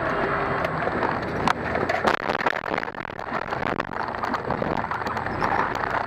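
Steady vehicle noise with a run of sharp knocks and clatters, the loudest about one and a half and two seconds in.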